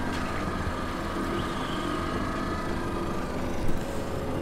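Boat outboard motor running steadily at low speed: an even low hum with a faint whine above it. A short knock comes near the end.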